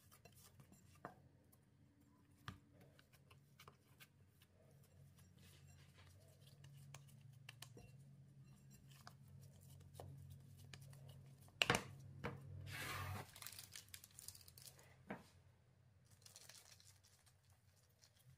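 Quiet kitchen handling with scattered small clicks over a faint low hum. About twelve seconds in, a packet is torn open with a short, sharp rip.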